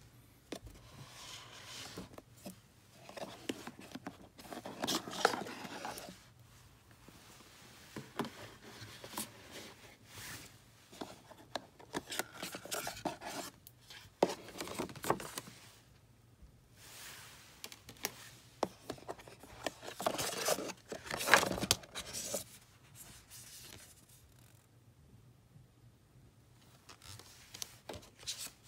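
Cardboard product box, its fitted inserts and paper leaflets being handled during unpacking: irregular scraping, rubbing and rustling with sharp clicks and taps, in bouts with quiet gaps, loudest about two-thirds of the way through.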